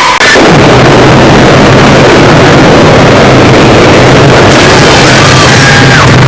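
Extremely loud, distorted, clipping noise like a blown-out blast sound effect, held steady throughout, with a low hum underneath.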